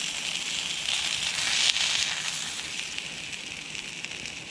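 Beef burgers sizzling and crackling on a hot ridged cast iron griddle pan as they are turned with tongs. The sizzle swells about a second in, then eases off.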